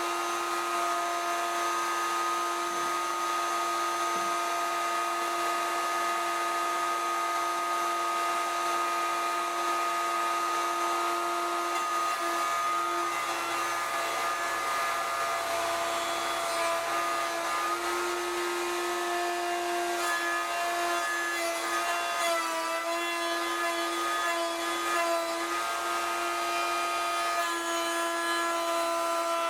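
Table-mounted router running at speed with a steady whine while its bit cuts a 3/4-inch-deep mortise in a 2x4 in a single full-depth pass; the pitch sags and wavers several times in the second half as the bit takes the load.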